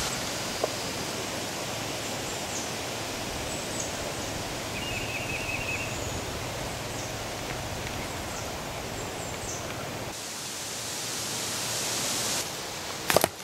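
Woodland ambience: a steady rushing hiss of outdoor background noise with a few faint bird chirps, including a short rapid trill about five seconds in. A couple of sharp clicks come right at the end.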